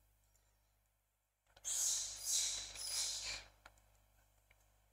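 A person's breathy exhale, like a sigh, close to the microphone, lasting about two seconds in a few swells, followed by a faint click.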